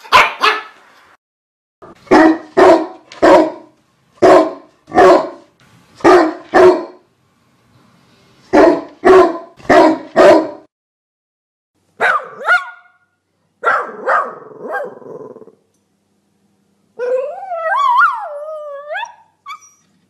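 Dog barking in quick runs of two to four sharp barks with short gaps between, a few higher barks that break in pitch after about twelve seconds, and near the end a drawn-out cry that wavers up and down in pitch.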